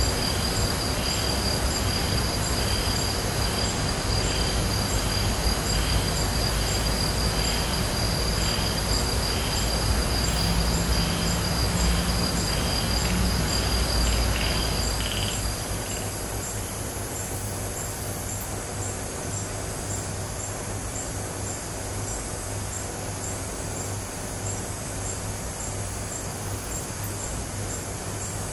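Night insects calling: a steady high trill together with a chirp repeated about twice a second, both stopping about fifteen seconds in. A low rumble lies underneath and eases at the same point, leaving a steady low hum.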